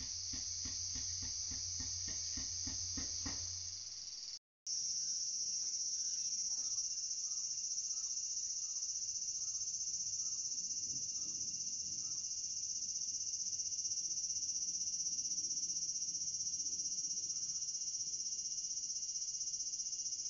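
A steady, high-pitched drone of singing insects. For the first four seconds a rhythmic knocking, about three beats a second over a low hum, sounds underneath; the sound cuts out briefly, then the insect drone goes on alone with faint repeated chirps.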